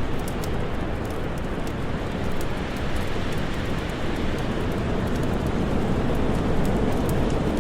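Steady rushing wind blended with a crackling fire, many small sharp pops scattered over the wind.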